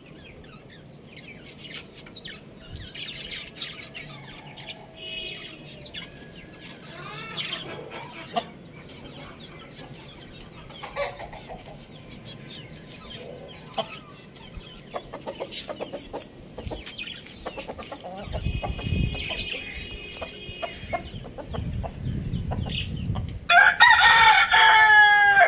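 Rooster giving short clucks now and then, then one loud crow of about two seconds near the end.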